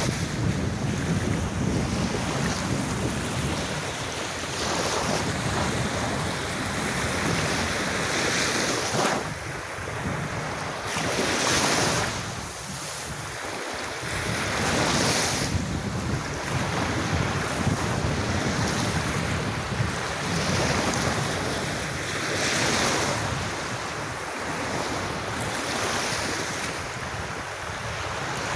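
Sea waves breaking and washing on a beach, swelling and easing every few seconds, with wind buffeting the microphone.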